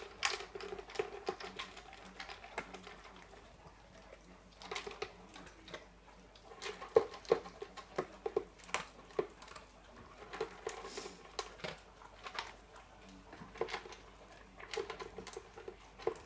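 German Shepherd eating dry kibble from a green plastic spiked slow-feeder: irregular clicks and crunches as she noses and bites food out from between the plastic spikes, easing off briefly about four seconds in.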